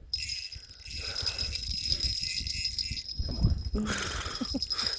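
Fishing reel being cranked while an angler fights a fish through the ice, a steady high whir that starts abruptly.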